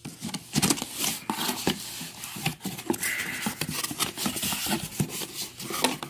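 Cardboard fireworks box being opened and its contents handled: a run of irregular clicks, knocks and scrapes of cardboard and shell tubes, with a brief rustle a little after halfway.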